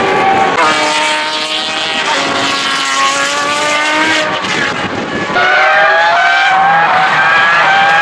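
High-revving engines of open-wheel racing cars, including a former Formula One car, accelerating hard. Their pitch climbs and drops back at each upshift. A second car comes in louder about five seconds in and shifts up twice more.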